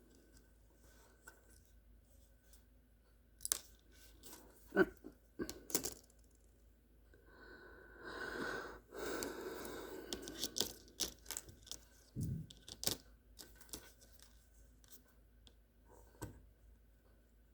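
Packaging being handled and opened by hand: scattered sharp clicks and taps, with a stretch of tearing and crinkling about eight seconds in, then more clicks.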